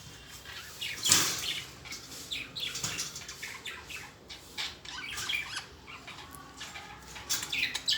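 Pet birds chirping and squawking in a rapid string of short, sharp calls, the loudest about a second in.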